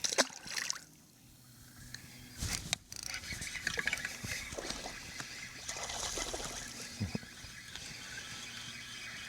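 Water sloshing and trickling around a fishing kayak, with a couple of sharp knocks, the first right at the start and another about two and a half seconds in.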